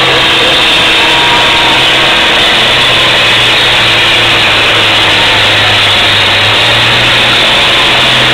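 Farm tractor engine running loud and hard under full load while pulling a weight-transfer sled. The engine note holds steady, sags slightly about two seconds in and picks back up near the end.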